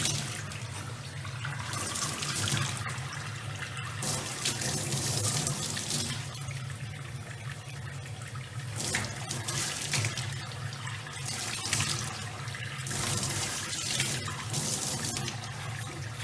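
Running water, a steady splashing hiss that swells and eases every second or two.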